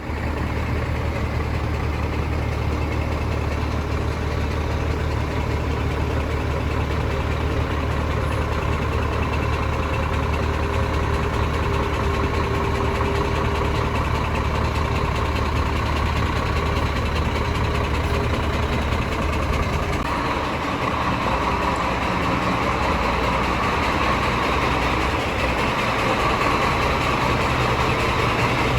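Scania DC13 inline-six diesel engine running steadily, its sound shifting about twenty seconds in. The engine was brought in for a knock, which the mechanic places in the fifth cylinder: the camshaft, a worn connecting-rod small-end bushing or a connecting-rod bearing shell.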